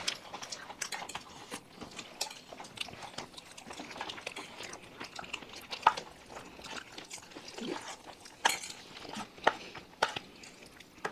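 Eating sounds at a table: scattered soft clicks and clinks of plates and utensils as rice dishes are mixed and eaten, with a few sharper taps a little past halfway.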